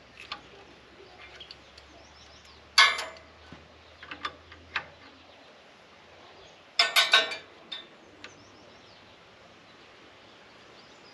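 Wrench clinking against the hydraulic coupling fittings on an excavator boom. A few sharp metal clicks, the loudest about three seconds in, then a quick run of several clicks about seven seconds in.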